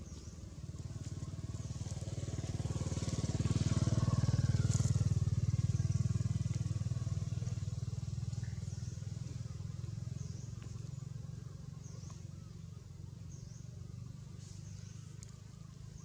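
A motor vehicle's engine running steadily, growing louder to a peak about four to six seconds in, then slowly fading, as if passing by.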